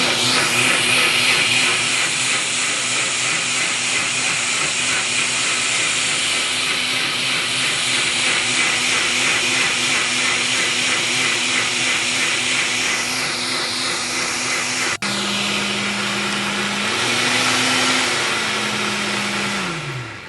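Electric countertop blender running, pulverising chopped fresh ginger in a little water. About three-quarters of the way through the motor cuts out for an instant and picks up again at a lower pitch. It rises briefly, then winds down and stops near the end.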